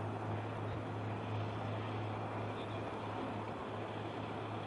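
A boat's engine running with a steady low drone, over a constant rushing of wind and water.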